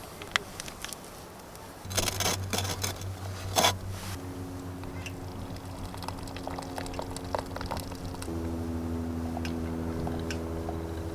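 Soft sustained background chords that change about every four seconds. Over them come clusters of crunching, squishing clicks, densest from about two to four seconds in.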